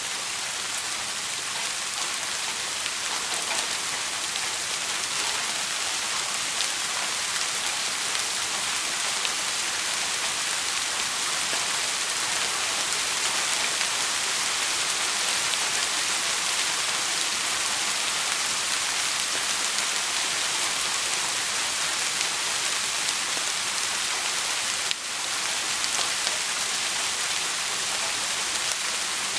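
Steady rain falling, a dense even hiss of many drops, dipping briefly in level near the end.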